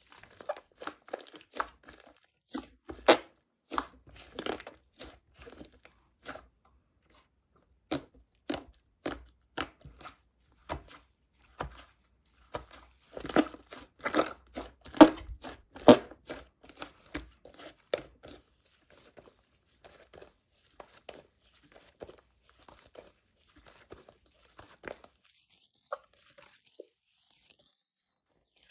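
Thick textured slime being squished and pressed by hand, making many short crackling, crunchy pops. They pause for about a second and a half some six seconds in, are densest and loudest around the middle, then thin out.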